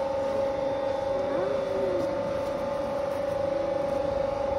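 Steady electric machine hum with two clear held tones, unchanging throughout.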